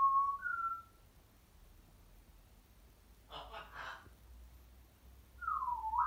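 African grey parrot whistling: two short whistled notes at the start, the second a little higher, then a brief burst of chatter about three seconds in, and a swooping whistle that falls then rises near the end.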